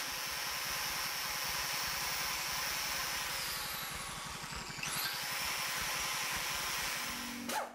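Electric angle grinder fitted with a paint-removal disc running against a flat steel spoke, stripping the surface. A steady whine that dips in pitch and comes back about halfway through, stopping near the end.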